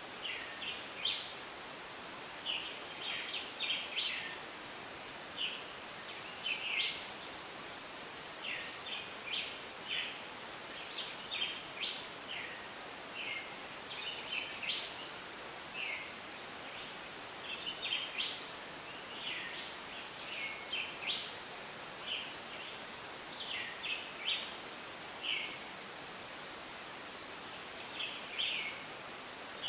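Rainforest ambience: a dense, unbroken chorus of short, high chirps and calls from many animals at once, over a soft steady hiss.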